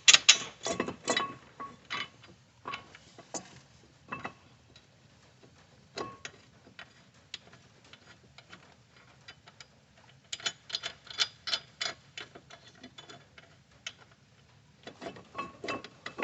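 Hand ratchet wrench clicking in short runs of quick, even clicks, with scattered single metal clicks in between, as brake hardware is fitted back on.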